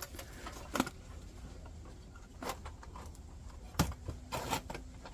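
Antique steel folding candle lantern being handled, its metal parts clinking and tapping a few separate times, loudest a little before the end.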